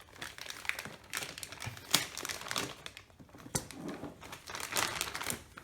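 Plastic anti-static bag crinkling in irregular bursts as a motherboard is handled in it.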